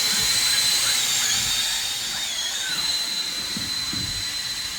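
Electric drill running steadily, spinning the oil-pump primer shaft to pre-oil the 408W small-block Ford. It gives a high whine over a hiss, dipping in pitch briefly twice.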